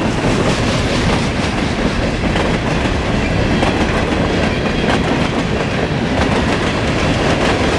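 A train rolling past at close range: a steady, loud rumble of wheels on rail with repeated clacking over the rail joints.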